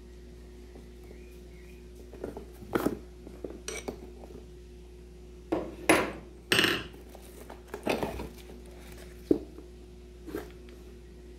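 Clunks, knocks and rustles of a switched-off angle grinder and its metal accessories being handled and lifted out of a cardboard box: about a dozen irregular bumps, the loudest near the middle, with a faint steady hum underneath.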